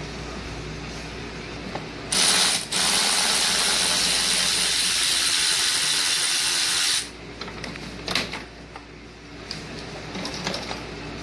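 Ratchet wrench clicking in one rapid, continuous run for about five seconds, starting about two seconds in. A few lighter clicks and knocks follow near the end.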